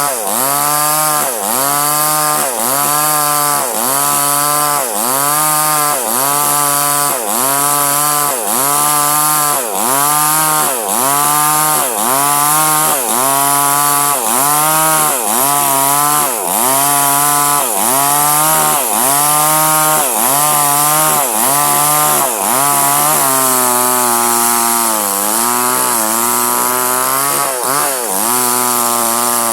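Small two-stroke chainsaw at high revs cutting durian wood. Its pitch sags and recovers about once a second as the chain bites and eases, then it settles into a steadier, lower pitch under load near the end, with a couple more dips.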